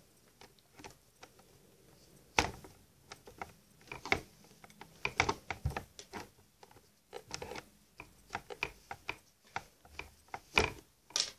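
Handling noise: hands rubbing and gathering a doll's hair and stretching a hair tie around it, with irregular small clicks and rustles and a few sharper knocks, the loudest about two and a half seconds in and two near the end.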